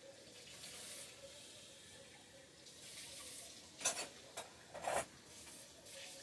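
Water running as a mixing bowl is rinsed out, with a few sharp knocks of the bowl against the sink about four and five seconds in.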